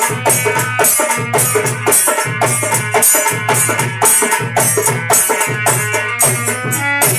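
Instrumental interlude of a devotional song: a dholak plays a steady, fast rhythm with a deep bass stroke about once a second, over bright jingling percussion and held melodic notes.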